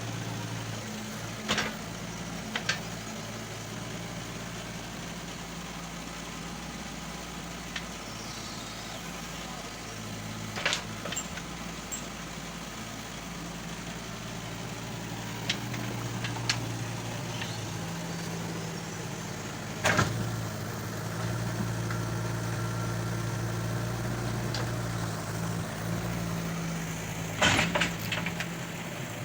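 JCB 1CX compact backhoe loader's diesel engine running steadily and swelling under load at times. Occasional sharp knocks are heard over it, the loudest about two-thirds of the way through and a cluster near the end.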